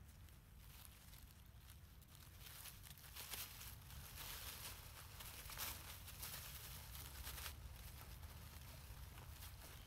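Faint rustling and crackling of dry leaf litter as macaques scuffle and wrestle on it, strongest through the middle few seconds, over a low steady rumble.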